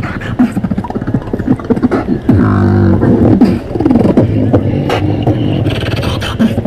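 Beatboxing: rapid rhythmic mouth clicks and pops over a low hummed bass, loudest for about a second in the middle.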